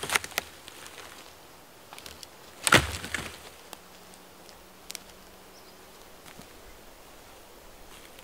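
Dead pine log dropped onto a pile of logs: a few light wooden knocks at the start, then a heavy wooden thud with cracking about three seconds in.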